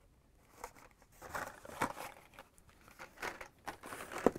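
Carded Hot Wheels cars being handled and shuffled: the stiff plastic blisters and card backings crinkle and click in scattered light taps. The taps grow busier toward the end, with one sharper click near the end.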